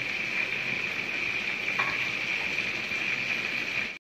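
Sliced onions frying in hot oil, a steady sizzle that cuts off abruptly at the end.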